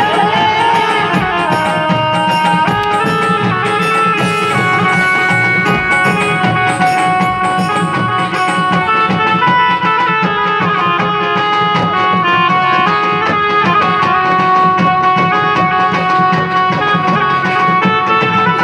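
Live band playing loud amplified folk dance music: large barrel drums beat a steady rhythm under a keyboard melody of held notes.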